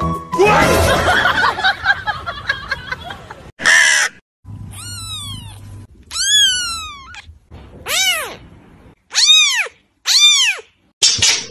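A white kitten meowing: five high-pitched meows in the second half, each arching up and falling in pitch, about a second or so apart. The first few seconds hold a busier stretch of mixed noise.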